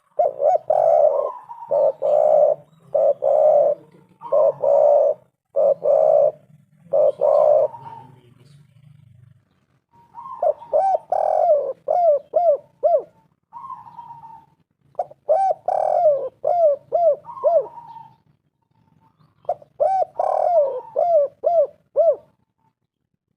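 Spotted dove (tekukur) cooing in repeated phrases: a run of coos in the first third, then three shorter bouts of quick rising-and-falling notes with pauses between them.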